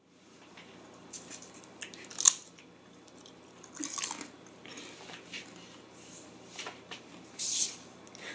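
Scattered rustling and clicking handling noises over faint room tone, with a sharp crack about two seconds in and longer rustles near the middle and the end.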